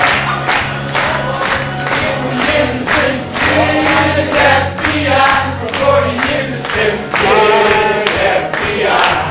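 Music with a steady beat and a bass line, with a group of voices singing over it.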